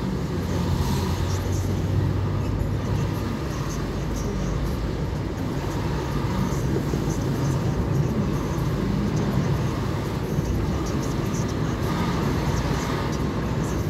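Steady engine and tyre road noise heard from inside a car's cabin while driving, with a low hum in the first few seconds.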